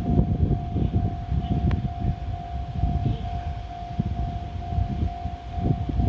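Japanese railway level-crossing alarm ringing: an electronic bell tone repeating about twice a second, over a loud, uneven low rumble.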